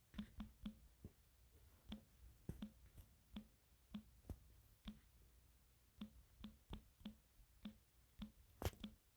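Quiet computer mouse clicking: about twenty short, sharp clicks at irregular intervals, with the loudest near the end.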